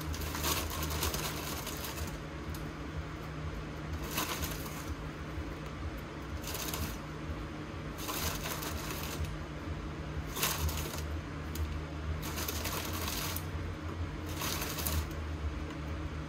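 Crinkling of a plastic cookie wrapper in seven short bursts, one every second or two, as vanilla wafers are pulled out one at a time. A steady low hum runs underneath.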